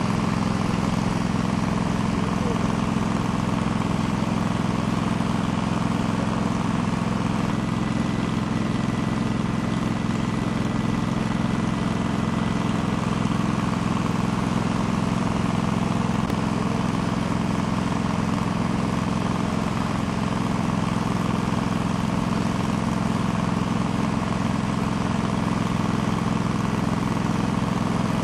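An engine running steadily at a constant speed, with no revving or change in pitch.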